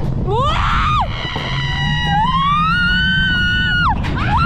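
High-pitched screaming on a mountain coaster ride: a short rising yelp, then one long held cry that rises and cuts off about four seconds in, over a steady low rumble from the cart.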